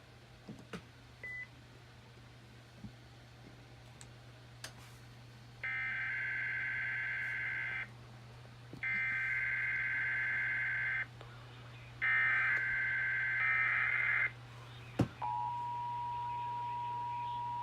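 Emergency Alert System relay from a Sage Endec. After a few button clicks and a short beep, the SAME digital header sounds three times, each a buzzy data burst about two seconds long. About fifteen seconds in, the steady two-tone EAS attention signal begins.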